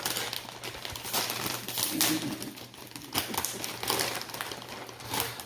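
Blind-bag packets being torn open and their wrappers crinkled by hand, with irregular crackles throughout.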